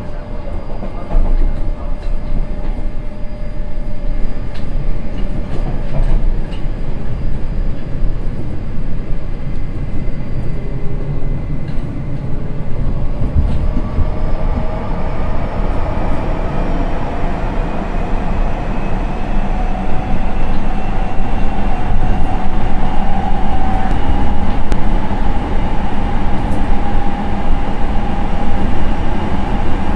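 Nagoya Municipal Subway 3000 series electric train running, heard from on board: a steady rumble of wheels on rail, with a motor whine that rises slowly in pitch from about halfway through as the train gathers speed.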